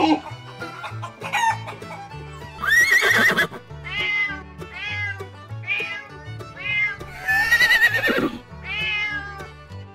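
Background music under a run of animal calls: a rooster's crow breaks off right at the start, then a string of short rising-and-falling cat meows, with two longer, louder calls about three and seven and a half seconds in.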